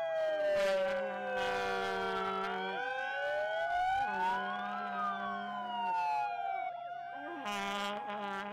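Siren wailing, its pitch sliding slowly down, up and down again over several seconds, with a few short bursts of noise over it.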